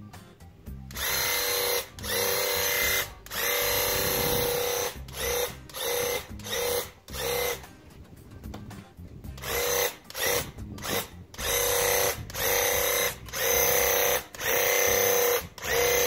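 Graco Ultra handheld airless paint sprayer's pump running in bursts as the trigger is pulled for each spray pass. There are several bursts of about a second, then a run of short bursts about two a second, a pause of nearly two seconds, and more bursts to the end.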